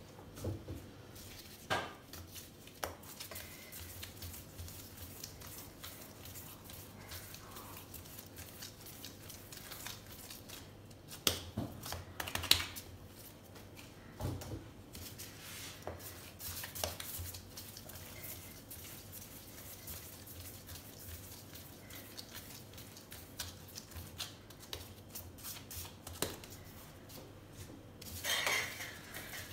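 Hands shaping pizza dough into balls on a granite countertop and setting them on a cloth-covered board: scattered soft knocks and taps, with a few louder clatters about 11 to 14 seconds in and a brief rustle near the end.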